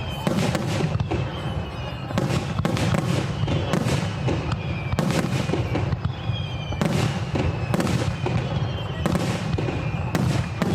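Fireworks display: shells bursting one after another, about one or two bangs a second, over a continuous low rumble.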